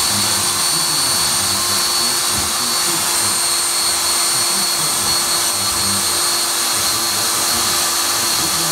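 A DeWalt 18-volt cordless drill running steadily with a high whine, spinning a mahogany strip down through a steel dowel plate, which shaves it into a round dowel.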